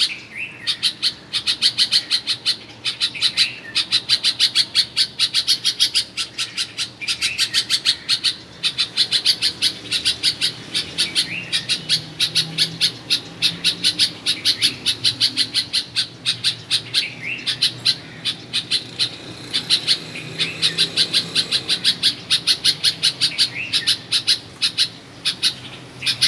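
Bulbul giving rapid runs of short, sharp chirps, several a second, in bouts broken by brief pauses.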